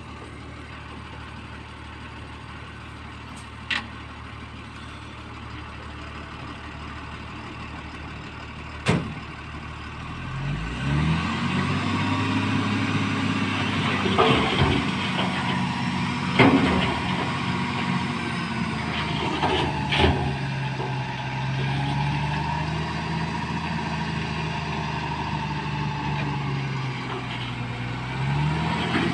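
Ashok Leyland tipper truck's diesel engine idling, then revving up about a third of the way in and held at the higher speed to drive the hydraulic hoist that raises the loaded tipper body. A few sharp knocks sound over it.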